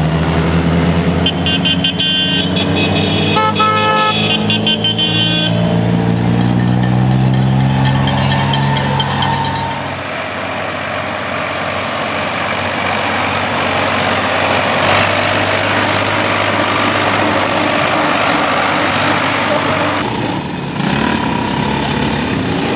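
Tractors and off-road cars driving past in a parade, with car horns honking in several short and longer toots over the first few seconds. Beneath them engines run, one sinking in pitch as it goes by, followed by a steady rumble of engines and tyres.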